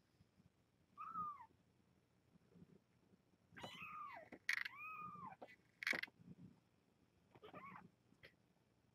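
Young kittens mewing: about four short, high-pitched mews, each rising and falling, the two clearest back to back about four to five seconds in, with a couple of sharp clicks.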